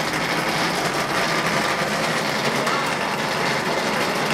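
Automatic wall rendering machine running steadily, its motor-driven plastering carriage climbing the mast while it spreads gypsum plaster on the wall.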